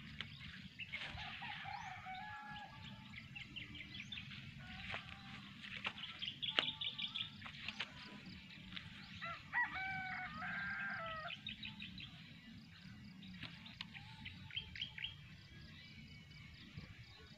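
Small birds chirping, with repeated rapid trills, and a longer pitched call about ten seconds in.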